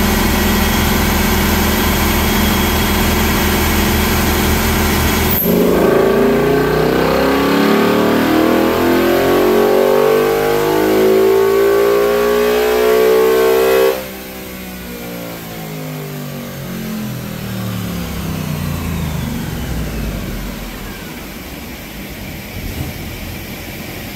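Ford S650 Mustang GT's 5.0-litre Coyote V8, through its factory active exhaust, running on a chassis dyno. It runs steadily for about five seconds, then goes into a full-throttle pull with the note rising for about eight seconds. The throttle then shuts off suddenly and the note falls away slowly as the car coasts down on the rollers.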